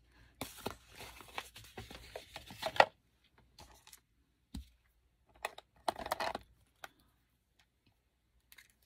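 Makeup brushes and products being handled and rummaged through: rustling and clicking, busy for the first three seconds, then a few scattered clicks, a low knock about halfway and a short rustle.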